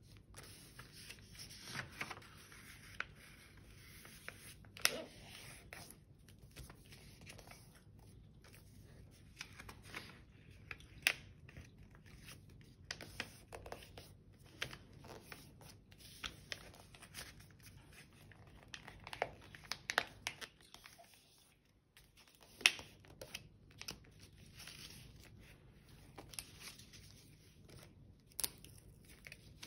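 A sheet of paper being folded and creased by hand into a long strip on a table, rustling with short, sharp crackles scattered throughout as the folds are pressed flat.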